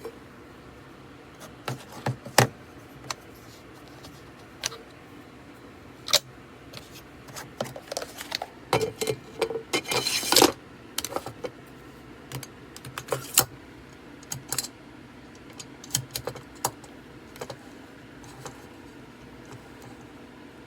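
Scattered clicks and light metallic clinks of small hard parts being handled, with a short denser clatter about ten seconds in.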